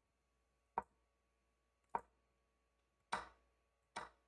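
Four faint, sharp clicks about a second apart, the third a little longer and louder, as the moves of an online chess game are stepped through one by one.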